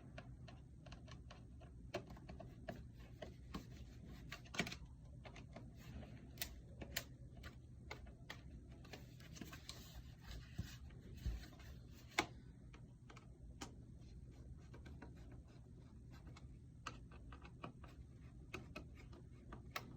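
Faint, irregular clicks and taps of a screwdriver and a goalie mask's wire cage being handled as the cage screws are tightened, over a low steady hum.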